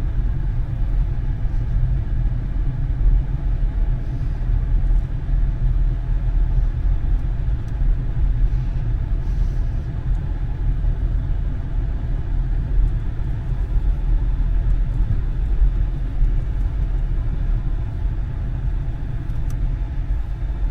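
A vehicle driving slowly, with a steady low rumble from its engine and road noise.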